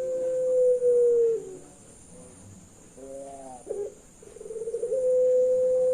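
Puter pelung dove cooing: long, steady hooting notes that drop in pitch at their ends. One note ends about a second and a half in, a short coo follows near the middle, and a second long note begins with a brief rolling stutter and runs on past the end.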